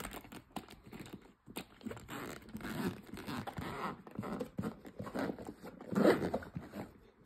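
Zipper on a fabric motorcycle tank bag being pulled open in several uneven strokes, mixed with rustling and scraping of the bag as it is handled; the loudest rasp comes about six seconds in.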